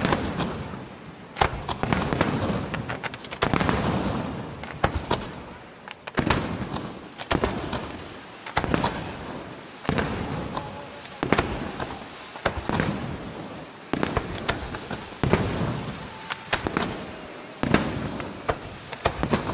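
Aerial firework shells bursting in quick succession, a sharp bang about every second or so, each trailing off in a rolling rumble.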